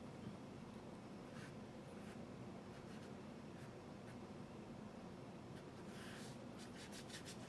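Faint brushing strokes on watercolour paper, a few short scattered ones with a small cluster near the end, over a low steady room hum.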